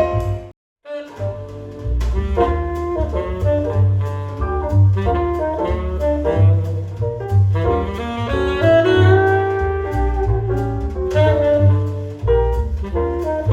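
Instrumental jazz played back through a hi-fi system, with a horn lead over a bass line. About half a second in, the music stops for a split second, then the same piece starts again.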